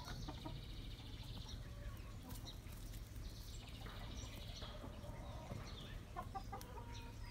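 Young backyard hens clucking softly with short calls near the end, over a steady low rumble. A high, rapid buzzing trill comes in twice.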